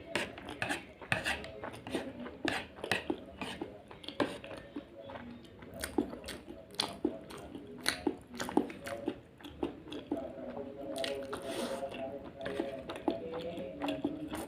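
Someone eating: chewing, with many short, irregular clicks of utensils against a dish.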